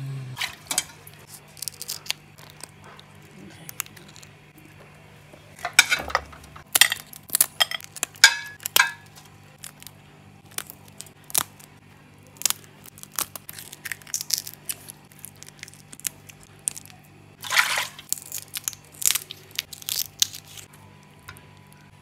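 Small scissors snipping through a large prawn's shell as it is cleaned, with wet handling of shell and flesh: a string of short clicks and snaps, thicker and more crackly in a stretch about six seconds in and again later on.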